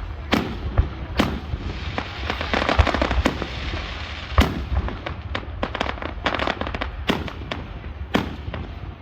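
Aerial fireworks bursting in quick succession, a string of sharp booms with crackling between them, and a dense run of crackling about two to three seconds in.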